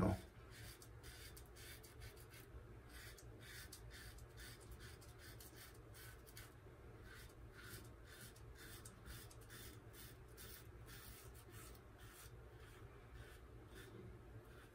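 Gem Micromatic single-edge safety razor with a GEM Professional blade scraping through three days of stubble under lather on the first pass, in short, faint strokes about three a second.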